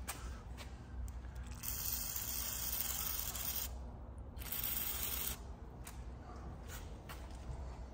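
Aerosol can of Gel Lube hissing through its straw onto the rusty rod of a stuck hydraulic control valve, to free it up. There are two bursts: one of about two seconds, then a shorter one under a second long.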